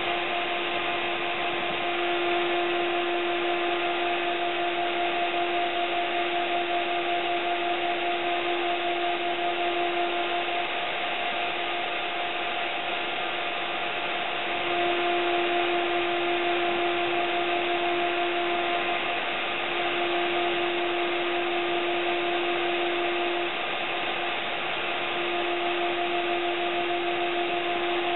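Routout Z90 CNC router's spindle running steadily with a whine over a hiss, milling a printed circuit board. The whine grows louder and softer a few times.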